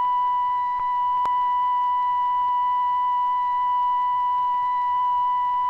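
A steady, high-pitched electronic signal tone holding one unbroken pitch at a constant level, with a faint click a little over a second in.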